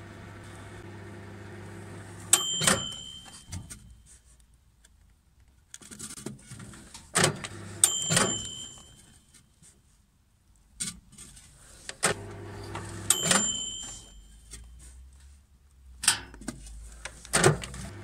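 Microwave oven running with a low, steady hum that stops and later starts again as the door is opened and shut. There are sharp clicks of the door latch, several with a short metallic ring, and quieter knocks from handling the ceramic microwave kiln inside.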